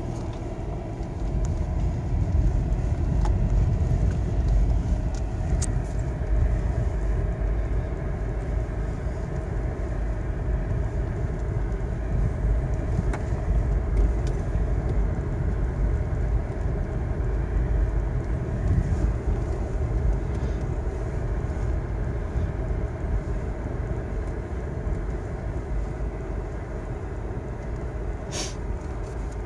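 Inside a Suzuki S-Cross driving on a rutted dirt track: a steady low rumble of the engine and of the tyres and suspension working over the ruts. There is a brief sharp click near the end.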